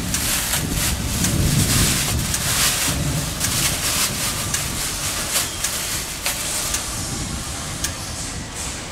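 Steady rush of air from a powder coating feed system's cyclone blowback, with crinkling and crackling of a plastic powder bag being handled and fitted over the powder box.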